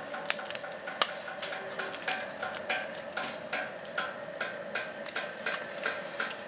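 Stainless-steel wood pellet pizza oven burning: a steady hum from the pellet burner's small DC blower, turned down to low voltage, under a rapid run of sharp clicks, about three or four a second, with one sharper crack about a second in.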